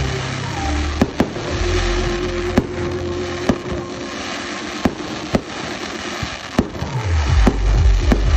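Fireworks display with aerial shells bursting in sharp bangs, roughly one a second, over a continuous crackle. A music soundtrack with deep bass notes and a long held tone plays underneath, its bass growing louder near the end.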